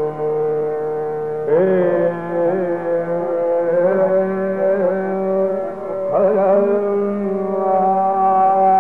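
Male Hindustani khayal vocalist singing long, held notes of Raga Chayanat over a tanpura drone. Fresh phrases with sliding ornaments begin about a second and a half in and again about six seconds in.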